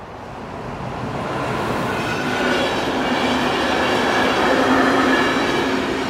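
SPENO rail-grinding train, a diesel unit with yellow wagons, passing over a level crossing with wheel-on-rail noise and engine hum. It grows louder, is loudest about five seconds in as the powered unit goes by, then starts to fade.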